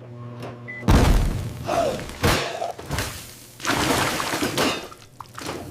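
A low steady hum for about a second, then a string of loud crashes, thuds and shattering, the loudest about a second in and a longer crash near the four-second mark.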